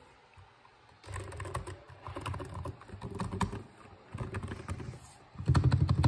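Lubed Razer Huntsman Mini keyboard being typed on in fast runs of keystrokes, starting about a second in, with a louder flurry near the end.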